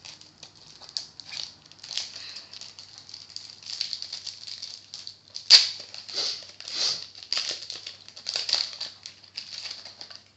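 Animal Crossing trading cards and their foil pack being handled, a run of crinkling and rustling bursts, with one sharper crackle about halfway through.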